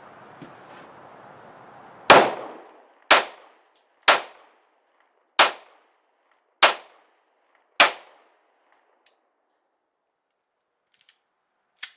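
Six pistol shots from a Ruger LC9 9mm, fitted with a stainless guide rod and 20 lb recoil spring, fired at a steady pace about a second apart, each a sharp crack with a short ringing tail.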